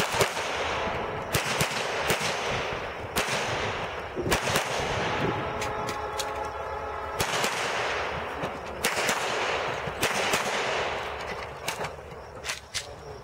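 Glock pistol fired in quick pairs and short strings, each shot followed by a long echo, as the shooter works through a stage. There is a brief pause a little past the middle before the pairs resume.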